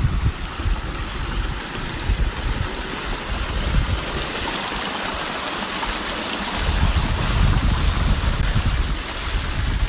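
Shallow stream water running and splashing down narrow channels in rock, a steady rushing trickle. Wind buffets the microphone as a low rumble that drops away for a couple of seconds around the middle and returns.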